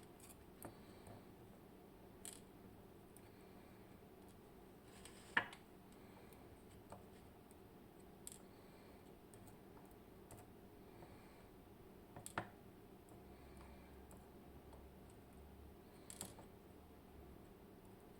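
Sparse small clicks and taps as a ten-pin Clavis dimple lock is taken apart by hand. The sharpest click comes about five seconds in, with others around twelve and sixteen seconds.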